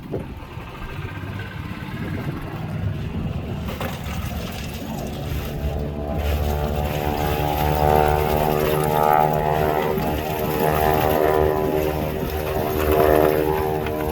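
Stearman biplane's radial engine and propeller droning in flight, growing louder from about five seconds in.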